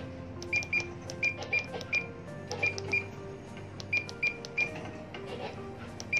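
Furuno GP-32 GPS navigator's key beeps: about a dozen short, high beeps at one pitch, in irregular runs of two to four, one beep for each press of the cursor keys as a waypoint's coordinates are stepped through.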